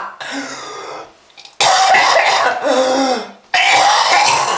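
A smoker's harsh, hacking cough: two long coughing fits about two seconds apart, with strained voiced groaning in them and a quieter rasping breath between.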